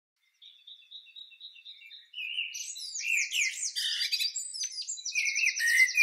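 Several songbirds singing together. A faint run of repeated high chirps comes first; about two seconds in, louder overlapping songs and trills join in, and a rapid even trill comes near the end.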